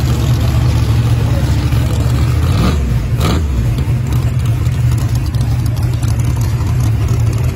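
Drag race car's engine idling loud and steady, with no revving. A brief rising and falling sound passes about three seconds in.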